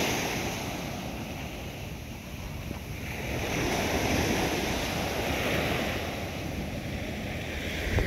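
Small sea waves breaking and washing up a sandy beach. The surf swells and eases with each wave: loud at first, dropping a couple of seconds in, then building again.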